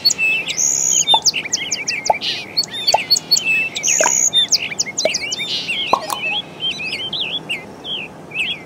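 Birdsong: many small birds chirping and trilling at once, a dense chorus of short high calls that overlap without pause.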